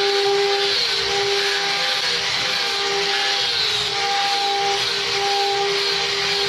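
Sawmill machinery running steadily, a constant whining hum with a hiss over it.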